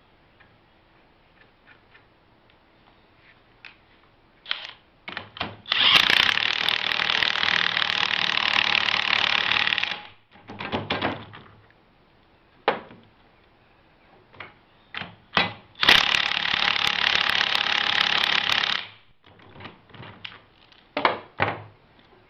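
Impact wrench hammering in two bursts, about four seconds and then about three seconds long, tightening a castle nut down onto a mower's pulley spindle. Short metal clinks and knocks from the socket and washers come before, between and after the bursts.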